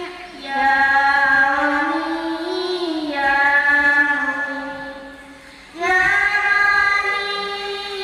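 A child's voice chanting Quranic recitation over a PA in long melodic phrases, holding and bending each note. One phrase fades out and a new one starts about six seconds in.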